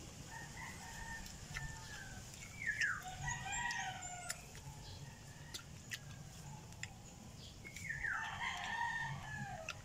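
A rooster crowing twice, each crow about a second and a half long, the second near the end, with faint sharp clicks in between.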